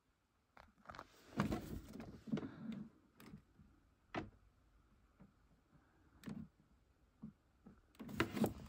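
Hands handling a gas boiler's plastic cable-entry seal and the wiring around it: scattered clicks and knocks with bouts of rustling and clattering, busiest in the first few seconds and near the end.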